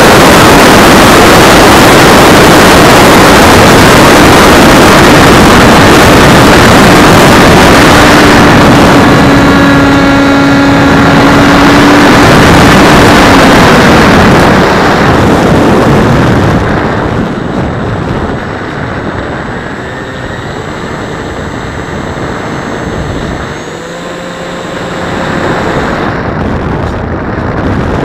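Wind roaring over the onboard camera of an AXN Floater Jet RC plane in a fast descent. The electric motor and pusher propeller hum steadily over it from about 8 seconds in. Past halfway the rush drops off, leaving a quieter, shifting motor whine as the throttle changes, and the noise swells again near the end as the plane comes down over the grass field.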